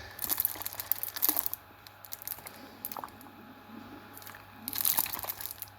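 Plastic water bottle crinkling as it is handled and shaken, in two spells, to set its supercooled water freezing into ice.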